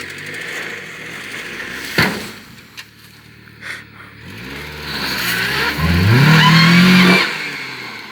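1997 Toyota Camry's engine revving under hard throttle, with a sharp knock about two seconds in. From about four seconds the engine pitch climbs and it is loudest for a second or so, with a high wavering squeal on top, before dropping off suddenly near the end.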